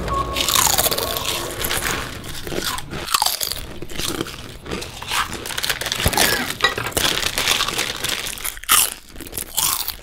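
Potato chips crunching as they are bitten and chewed, with the crinkle of a foil chip bag being handled and cut. Many short, irregular crunches throughout.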